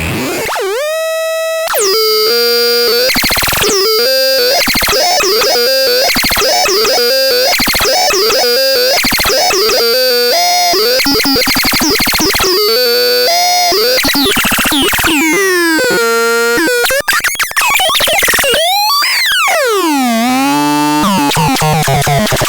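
Synthesizer playing harsh, buzzy electronic tones. A note rises and holds, then a run of short repeated notes steps between a few pitches, and near the end a long note swoops down and back up in pitch.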